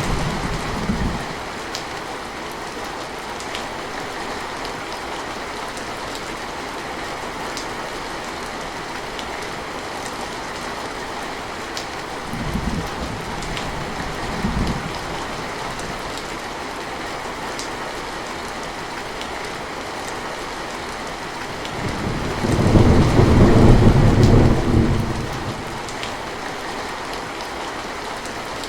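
Steady rain with scattered drop ticks. A thunder rumble dies away at the start, two short low rumbles come about halfway through, and a longer, louder roll of thunder builds and fades over about three seconds near the end.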